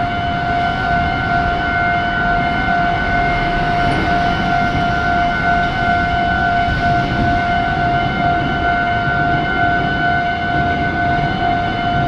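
Japanese railway level-crossing warning bell ringing in a steady repeating electronic ding while the crossing lights flash and the barriers are down, signalling an approaching train; a low steady rumble lies beneath.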